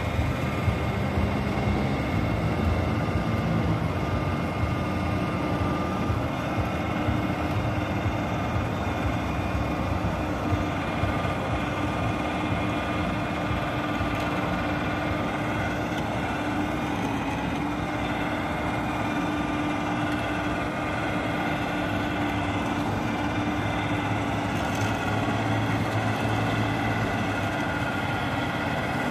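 Electric winch on a tow pickup running steadily as it hauls a motorcycle up a loading ramp: a continuous mechanical drone with a steady whine, switching on at the start.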